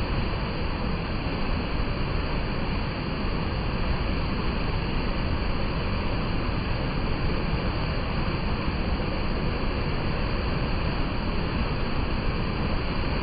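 Mountain stream rushing over rocks, a steady even rush of flowing water.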